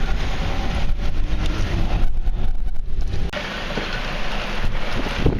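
Strong haboob wind gusting and buffeting the microphone: a loud rushing noise with a heavy low rumble.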